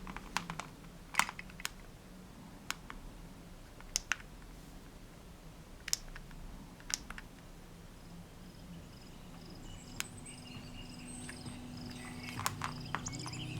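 About a dozen sharp, irregular clicks of device buttons being pressed and the gadgets being handled. Faint music starts to play from the speaker over the last few seconds.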